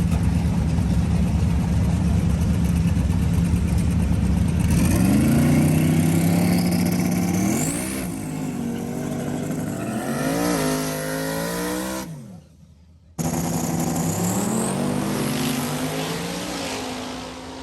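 Drag-racing car engines: a heavy rumble, then from about five seconds in an engine accelerating hard, its pitch climbing and dropping back twice at gear changes. The sound cuts out for about a second near twelve seconds in, then engine sound returns and falls away near the end.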